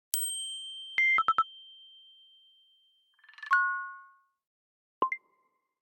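A series of built-in iPadOS system sound effects played one after another. A bright chime rings out and fades over nearly three seconds. About a second in, a quick run of short beeps sounds, then a chime swells in and rings near the middle, and a short two-note blip follows near the end.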